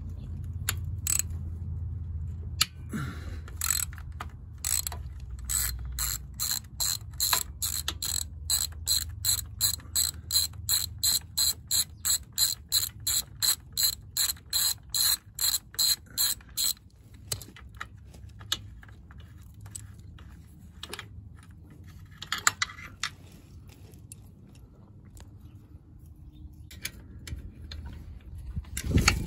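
Socket ratchet clicking in a steady run of about three clicks a second as a bolt is turned. The clicking stops a little over halfway through, followed by a brief scrape.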